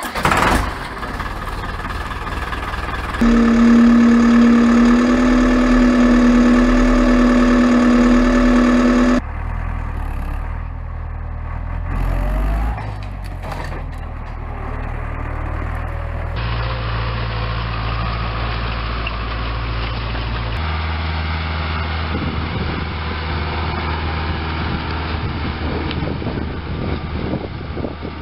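Deutz-Fahr tractor diesel engines running in a string of short clips that cut into one another sharply. First an Agroxtra 4.17, then a loud stretch with a strong steady whine over the engine note, a tractor working in mud with a brief rise in revs about twelve seconds in, and last a tractor running steadily while pulling a rotary hay tedder.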